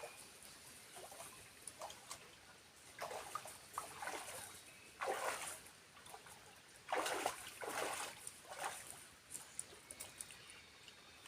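Water splashing and sloshing in a series of short, irregular bursts, the loudest about halfway through and again a couple of seconds later.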